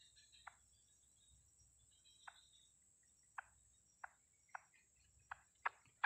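Short single call notes from a white-breasted waterhen, a few spaced out at first and then coming quicker near the end, over a faint steady high insect drone.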